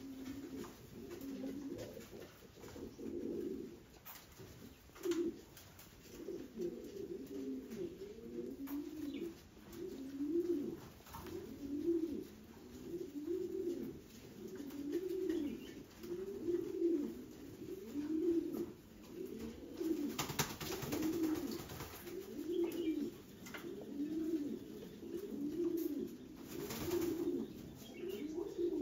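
Norwich Cropper pouter pigeons cooing, a low rolling coo repeated steadily about once every second or so. A couple of brief rustling noises come about two-thirds of the way through and again near the end.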